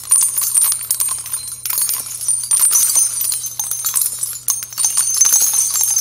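Jingling bells with a dense, uneven clatter of clicks: a transition sound effect under an animated title card.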